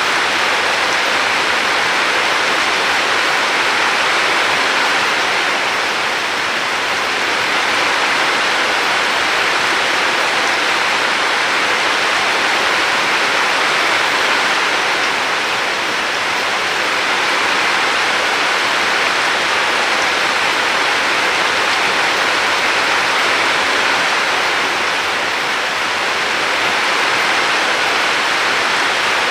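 Steady, dense rushing water, with only slight slow swells in level.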